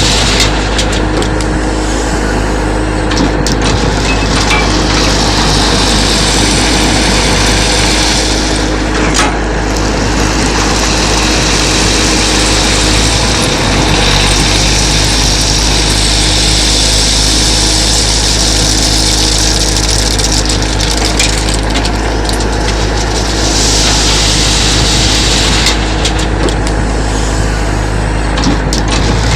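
Diesel engine of a heavy earthmoving machine (backhoe loader or excavator) running steadily, with a high hiss that swells and fades several times.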